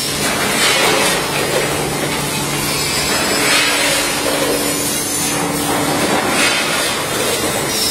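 Snack-food packaging line running, a multihead weigher feeding a bagging machine, giving a steady mechanical noise over a low hum.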